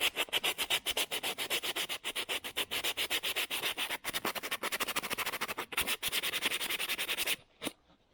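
Doubled-over 600-grit sandpaper rubbed quickly back and forth between the contact points of an overdrive throttle switch, in many rapid scratchy strokes, to clean dirty, burnt contacts. It stops abruptly near the end after one last short stroke.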